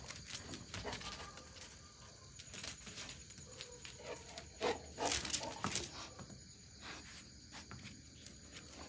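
A golden retriever puppy moving about on a wet concrete floor: scattered paw steps and scuffs, a louder cluster about five seconds in. A steady high insect trill runs behind.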